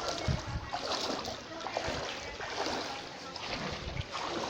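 Flood water splashing and sloshing in irregular bursts.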